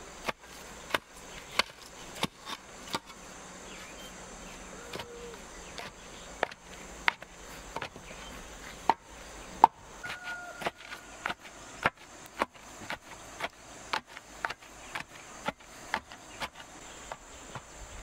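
Hand hoe chopping into packed earth around the base of a wooden post: repeated sharp strikes, about one to two a second, coming faster in the second half.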